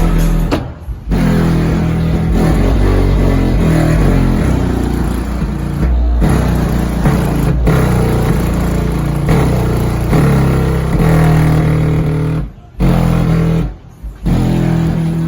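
Bass-heavy music played very loud through two Skar ZVX subwoofers driven by an Audiopipe 3000-watt amplifier wired at 2 ohms. The deep bass dominates, and the sound drops out briefly about a second in, around six seconds, and twice near the end.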